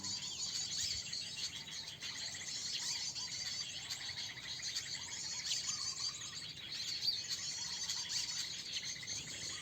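Many small birds chirping and twittering at once, a dense chorus of overlapping high, quick calls.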